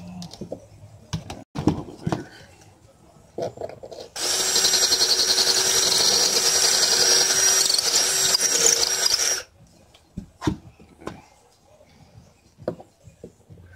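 Cordless drill running steadily for about five seconds, its thin bit boring a pilot hole into the boat's inner panel. A few sharp clicks and knocks of tool handling come before and after.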